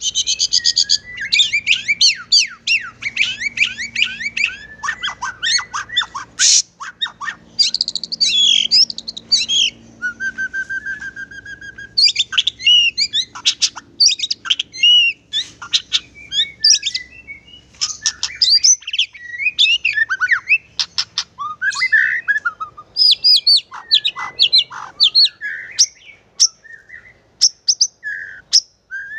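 Caged murai batu (shama) singing in full 'gacor' form: a fast, varied, continuous stream of whistles, chips and quick glides with only brief pauses. About ten seconds in there is a short buzzy rattle.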